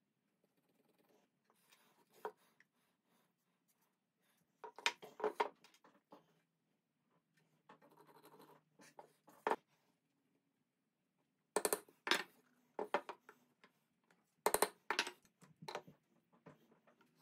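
Hands handling small wooden parts and hardware on a workbench: light clicks, taps and scratches, in clusters about five, twelve and fifteen seconds in.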